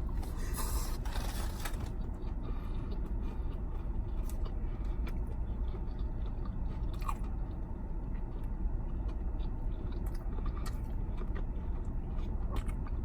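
A person biting into and chewing a crispy fried chicken sandwich, with crunching and mouth clicks, over the steady low hum of an idling car engine.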